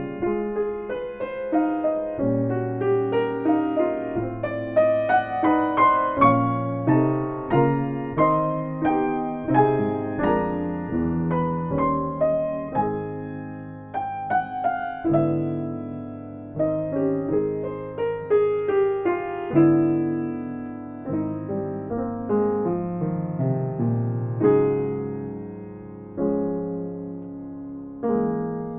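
Solo piano playing a slow, gentle piece, each note or chord struck and left to ring and fade.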